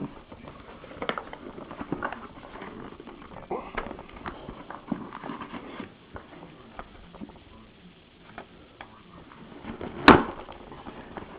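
Handling of trading cards and mail packaging: scattered light clicks, taps and rustles of card sleeves and paper, with one sharp knock about ten seconds in.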